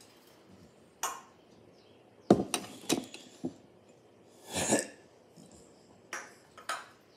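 An African grey parrot on top of its cage, pecking and knocking at things there: scattered sharp clicks and clinks, a quick cluster about two seconds in, and a longer, louder noise just past the middle.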